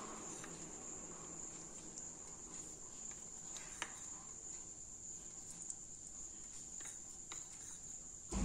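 Quiet room with a steady high-pitched whine and a few faint clicks.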